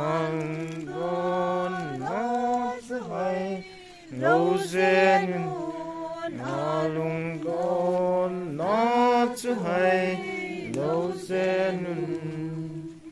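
Worshippers singing a slow hymn together, unaccompanied, in phrases of long held notes joined by short glides. The singing stops at the end.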